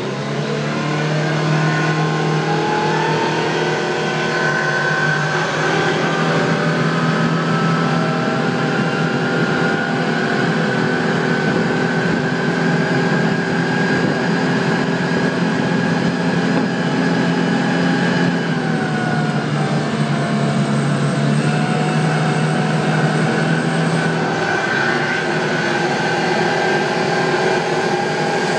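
Detroit Diesel engine of an aircraft pushback tractor running steadily under way, with a high whine over the engine note. The pitch shifts slightly about two-thirds of the way through.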